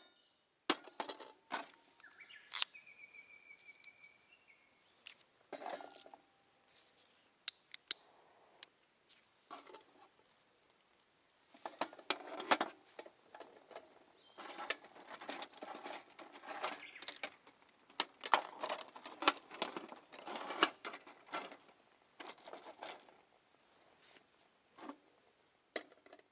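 Aluminium mess tin and lid clinking and clattering as they are handled and set onto a stove windscreen: a run of sharp metal knocks and scrapes, busiest in the second half.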